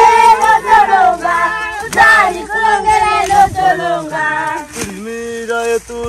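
A group of voices singing a song together, with long held notes, as a work song while hoeing.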